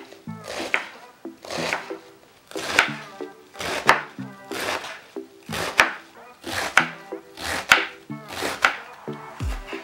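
Chef's knife slicing through a head of napa cabbage on a wooden cutting board, one slice about every second, each a short crunch through the leaves.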